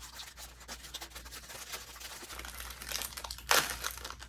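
Plastic snack packaging crinkling as it is handled and torn open, with one louder rip about three and a half seconds in.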